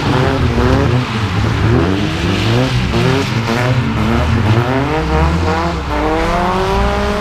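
Several classic Lada (Zhiguli) engines revving up and down at once as the cars drift. Their overlapping notes rise and fall, and one engine climbs steadily in pitch near the end.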